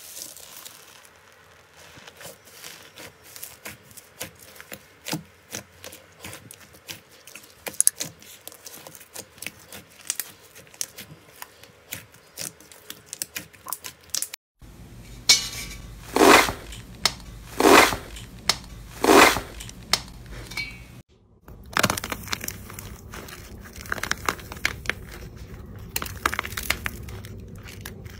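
A hand pressing into a bowl of small foam beads, a dense run of light crunching clicks. About halfway through, a large batch of slime is squeezed by hand in a glass bowl, giving four loud squelching pops. Near the end, a cracked shell of dried clay is crackling as it is broken apart.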